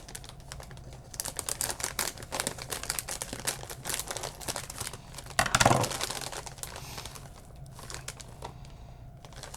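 Crinkling of a plastic snack bag of candy popcorn being handled and opened: irregular crackling throughout, with a louder burst about five and a half seconds in.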